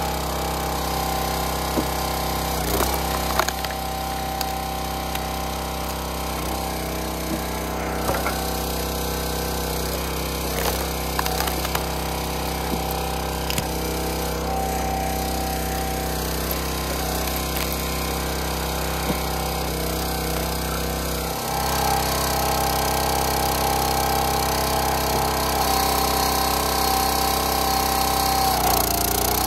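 County Line 25-ton log splitter's small gas engine running steadily, with sharp cracks and knocks of wood as logs are split. The engine gets louder and stays louder about two-thirds of the way through.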